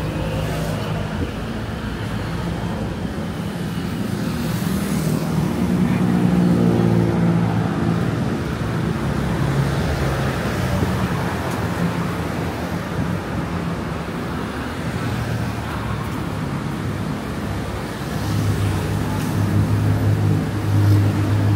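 City road traffic: a steady hum of vehicle engines and tyres from the road alongside, swelling as louder vehicles pass about five to eight seconds in and again near the end.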